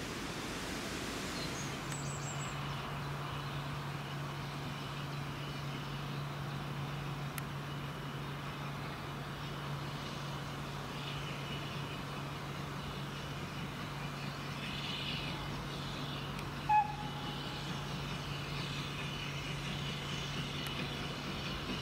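Manning Wardle L class saddle tank steam locomotive drifting slowly toward the listener with one coach: a steady low hum over quiet outdoor background, growing louder near the end. One short high note comes about three quarters of the way through.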